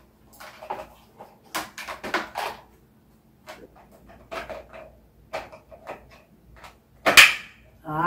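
Hard plastic parts of a fan clicking and knocking as the six-blade propeller is handled and pushed onto the motor hub. There is a sharper, louder knock about seven seconds in.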